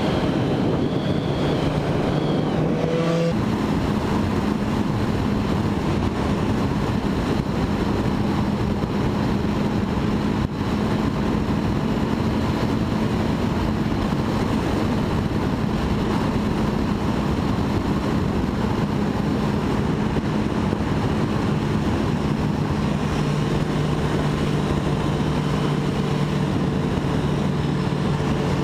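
Motorcycle engine running at a steady cruising speed, its note stepping up about three seconds in, with wind rushing over the helmet-mounted microphone.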